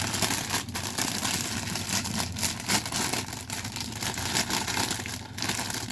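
Thin plastic bag holding model-kit runners crinkling and rustling as it is opened and handled, a continuous irregular crackle.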